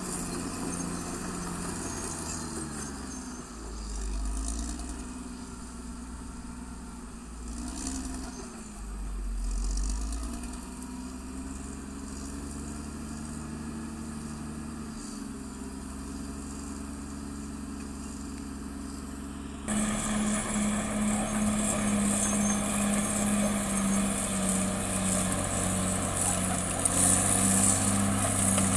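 Diesel engine of a CAT D6R XL crawler bulldozer working, its engine speed dipping and rising several times as it takes load. About two-thirds of the way through, the sound suddenly becomes louder and brighter.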